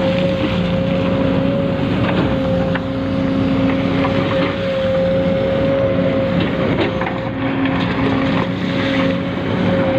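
Small electric motors of a radio-controlled model excavator and dump truck whining steadily at one high pitch, with scattered small clicks and rattles.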